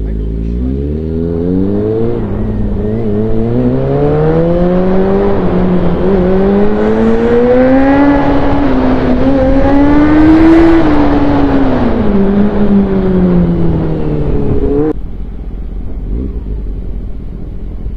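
Motorcycle engine heard from the rider's seat, pulling away and accelerating, its pitch climbing for about ten seconds with a few brief breaks. It then falls as the bike slows and drops off suddenly about fifteen seconds in, leaving a lower rumble as the bike comes to a stop.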